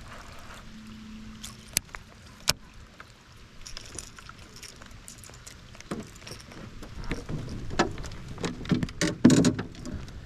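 Light rain pattering, with two sharp clicks about two seconds in, then a run of knocks and rattles from fishing tackle handled against a metal boat, loudest near the end.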